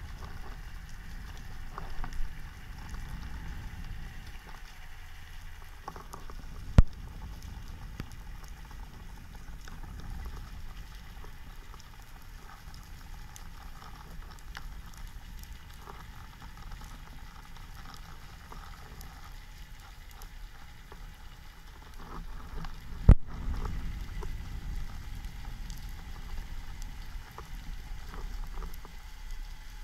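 Underwater ambience heard from a speargun-mounted camera: a steady fine crackling over a low rumble of moving water. Two sharp clicks stand out, one about seven seconds in and a louder one about two thirds of the way through.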